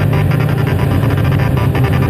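Upbeat background music with guitar and a driving beat, coming in abruptly at the start.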